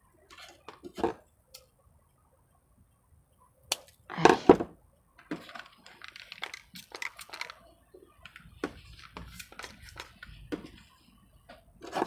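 Close handling of succulent rosettes and their soil-clogged roots: scattered crackles, rustles and small snaps as fingers rub off dry soil and pull the plant apart, with a louder crackling burst about four seconds in.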